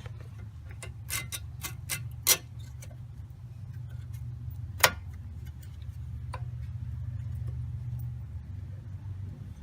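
A handful of sharp metallic clicks and clinks as new brake pads and their hardware are handled and fitted, with the loudest click about five seconds in, over a steady low hum.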